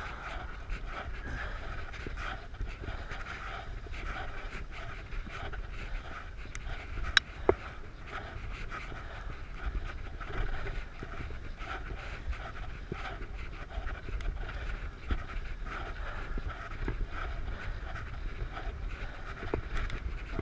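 Cyclist breathing hard while pedalling, over a steady rumble of wind and tyres on the road. Two sharp clicks a fraction of a second apart about seven seconds in.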